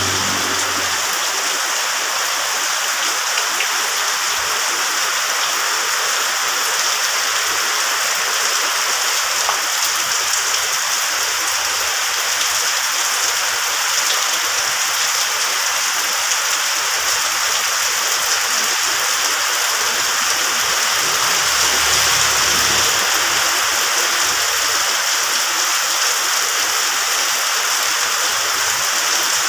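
Heavy rain falling steadily, splashing on concrete paving and a wet road.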